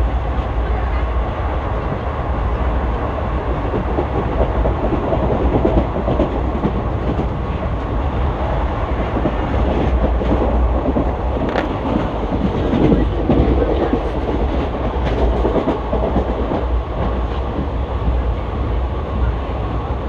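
ICF passenger coach running at speed: a steady rumble of wheels on rail, heard from inside the coach, with a few sharp clicks over rail joints about halfway through.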